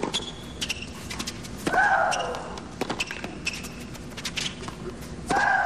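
Tennis rally on a hard court: the ball struck back and forth in sharp hits, with a player's long shriek falling in pitch on a stroke about two seconds in and again near the end.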